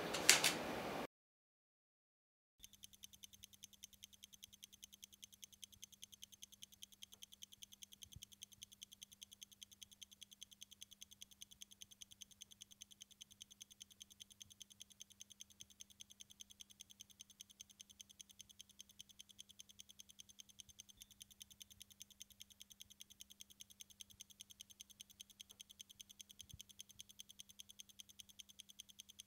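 A brief sharp sound at the very start, then about a second and a half of silence, then fast, even, clock-like ticking with a faint steady hum beneath it.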